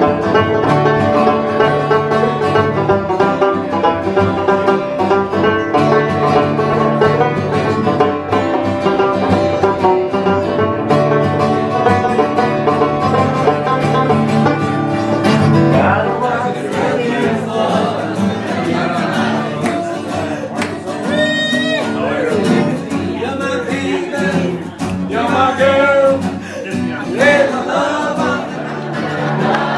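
Banjo and acoustic guitar playing a tune together. About halfway through, the sound changes to a group of people singing.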